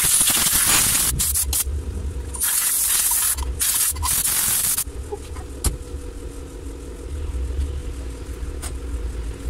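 Compressed-air blow gun hissing in one long blast and then several short bursts, blowing oil and dirt off the timing-belt end of an engine. The bursts stop about five seconds in, leaving a low steady hum and one sharp click.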